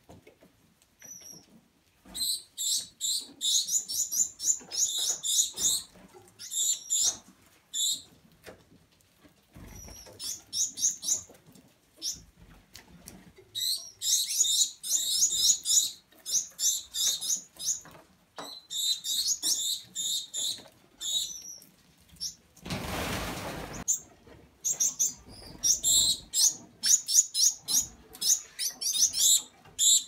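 Gouldian finch fledglings giving rapid, high-pitched begging calls in bursts of several seconds, asking the adults for food. About 23 seconds in, a brief rustling burst.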